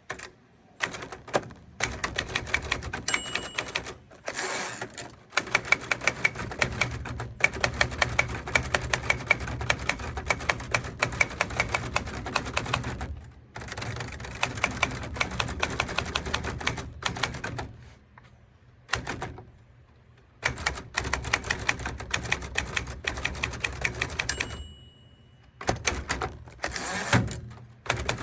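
Manual typewriter being typed on in quick runs of keystrokes with short pauses. Twice the end-of-line bell rings, followed by the carriage being returned.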